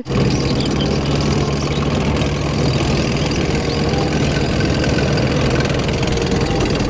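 Main battle tank on the move: a steady low engine note over a dense rattle of tracks and running gear.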